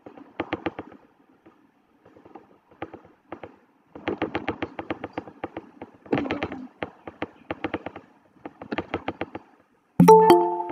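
Bursts of rapid clicking or crackling, then about ten seconds in a short chime of several ringing tones that fades quickly: the video-call alert for someone asking to join the meeting.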